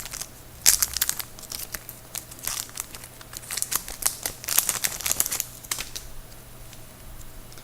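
Hockey card pack wrapper being torn open and crinkled by hand, in uneven bursts of rustling that die down near the end.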